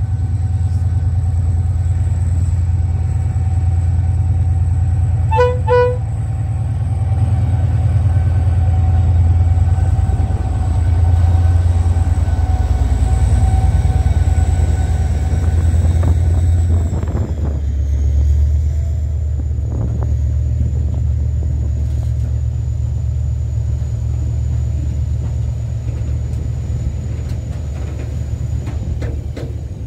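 Irish Rail 071 class diesel locomotive 079, its EMD V12 two-stroke engine working loudly as it hauls a freight train of open ore wagons through a level crossing. Two short horn toots come about five seconds in. Past the middle the engine note drops as the locomotive goes by, and the wagons roll past.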